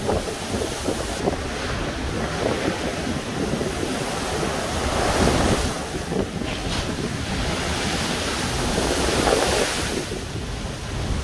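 Storm waves crashing against a sea wall and spraying over the railing, with strong wind buffeting the microphone. The surf swells to a louder surge about halfway through and again near the end.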